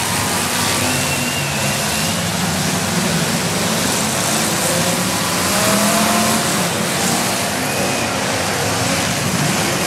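Many demolition derby cars' engines revving together, a dense, loud mass of engine noise with several pitches rising and falling as the heat gets under way.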